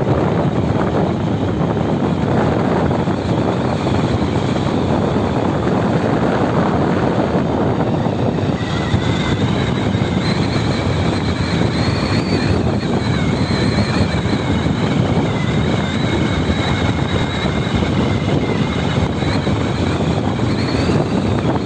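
Wind rushing over the microphone of a phone on a moving bicycle, a loud steady roar of noise. From about nine seconds in, a faint wavering high whistle sits on top of it.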